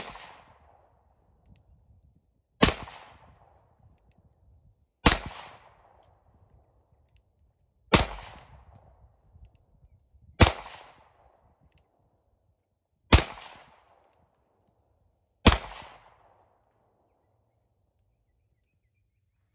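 Beretta 96D double-action-only pistol in .40 S&W firing seven single shots at a slow, even pace, about two and a half seconds apart. Each crack trails off over about a second.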